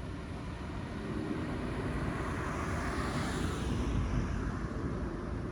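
A car driving past, its engine and exhaust growing louder to a peak about three to four seconds in, then fading.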